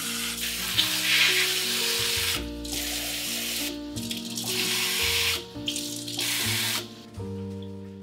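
Water running from a tap in long spells, cut off briefly three times and stopping about seven seconds in, over background music.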